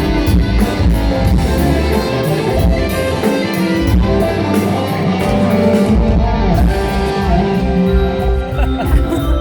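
Live rock band playing, with electric guitar to the fore over bass and a steady drum beat.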